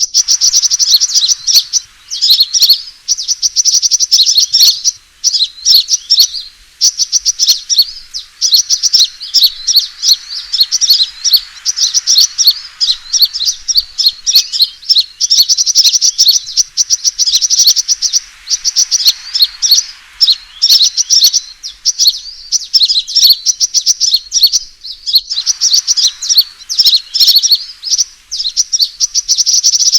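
Sunbird's fighting call: rapid, high-pitched chirps strung into bursts of a second or two, repeating over and over with short gaps. It is a territorial challenge call, played as a bird-trapping lure.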